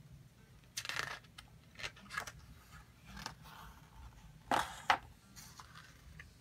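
A page of a large hardcover book being turned by hand: several short paper rustles and swishes, the loudest pair about four and a half seconds in as the page comes over.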